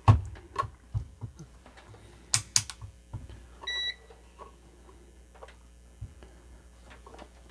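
Sharp clicks and taps of test probes and leads being handled, then about four seconds in a multimeter's continuity tester gives one short high beep, the sign that the two probed points are connected.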